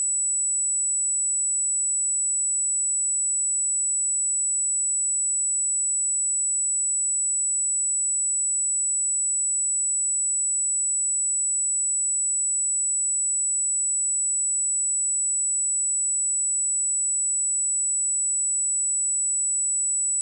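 A pure 7912 Hz sine-wave test tone, a single steady high-pitched whistle that does not change in pitch or loudness.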